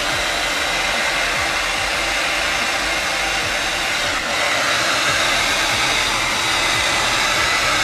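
Handheld hair dryer running steadily: a rush of blown air with a thin high whine. It dips briefly about four seconds in and comes back slightly louder.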